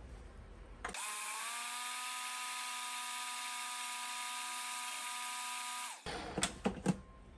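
Countertop blender motor running for about five seconds, blending oats, purple sweet potato and milk: it spins up with a short rising whine about a second in, holds a steady pitch, then cuts off suddenly. A few light clicks follow.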